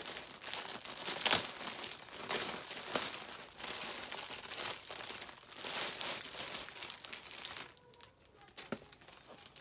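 Packaging around a towel set crinkling and rustling as it is handled and pulled from the box, with a sharper crackle about a second in. The rustling dies down near the end.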